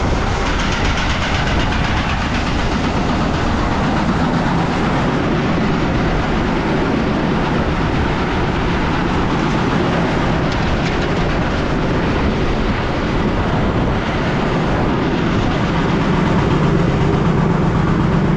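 Heavy farm machinery running steadily with a continuous rattle, a little louder near the end.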